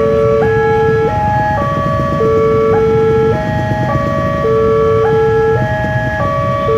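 Indonesian railway level-crossing alarm played through a loudspeaker: a short electronic phrase of stepping tones that repeats about every two and a quarter seconds, warning of an approaching train with the barriers down. Road traffic rumbles underneath.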